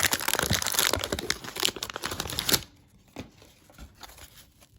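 A 1989 Fleer wax-paper card pack being torn open and its wrapper crinkled, a dense crackling rustle that stops about two and a half seconds in, followed by a few faint taps.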